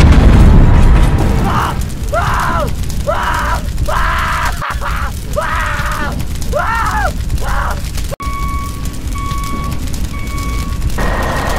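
Explosion sound effect: a loud low boom that fades over the first second or so. It is followed by a run of short rising-and-falling wailing cries, three evenly spaced short beeps, and a steady spraying hiss of water that begins near the end.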